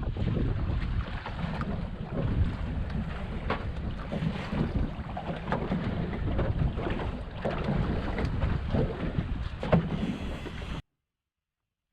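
Wind buffeting the microphone on a small boat at sea, with water noise and scattered light knocks. The sound cuts off abruptly near the end, leaving dead silence.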